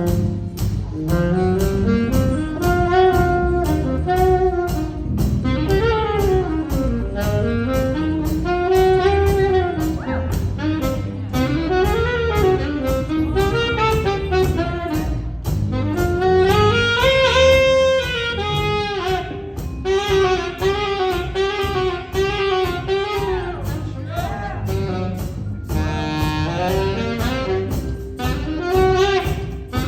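Saxophone ensemble of alto, tenor and baritone saxophones playing a jazz tune over bass guitar and piano, with swooping, bending melodic lines on a steady beat.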